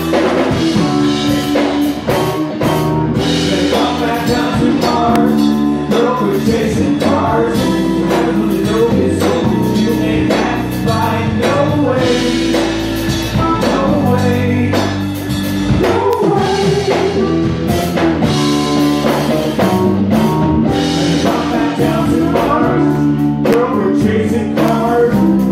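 Live band playing a song: a male singer over electric guitar, keyboard and drum kit.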